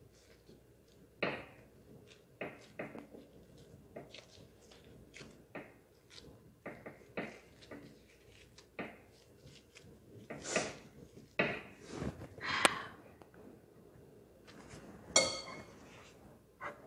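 Irregular soft taps and knocks of a gloved hand pressing and patting a ball of dough on a floured board, with several louder knocks and scrapes in the second half.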